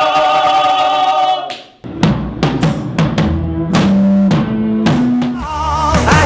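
Voices holding one long note that breaks off about a second and a half in, then a rock band comes in about two seconds in: drum kit hits over a bass line stepping between notes.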